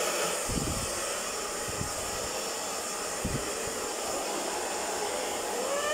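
Handheld hair dryer running steadily, blowing air to dry a wet puppy, with a few low thumps along the way.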